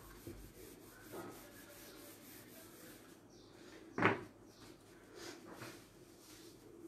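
Faint rubbing as writing is wiped off a whiteboard, and a single sharp knock about four seconds in.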